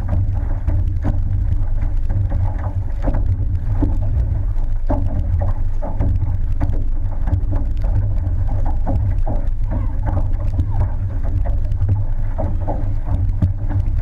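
Outrigger canoe being paddled hard at race pace: a heavy steady low rumble of water and wind on the hull-mounted camera, with the repeated short splashes of the paddle strokes over it.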